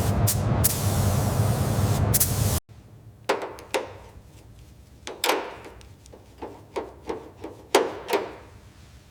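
A steady spraying hiss that cuts off suddenly, followed by about a dozen sharp, separate knocks and taps of hand tools at work.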